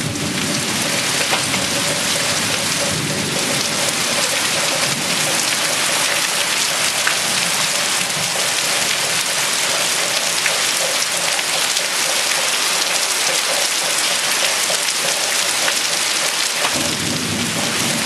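Heavy thunderstorm rain pouring steadily, hissing on surfaces, with low rolling thunder underneath. The rumble is strongest in the first half and swells up again near the end.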